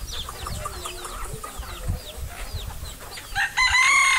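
A flock of free-range chickens clucking and chirping as they feed, many short falling calls overlapping. Near the end a rooster starts a loud, drawn-out crow.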